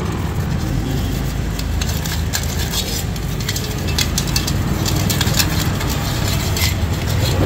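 A steady low machine hum under scattered clicks and scrapes from work on a dirty bicycle chain being cleaned.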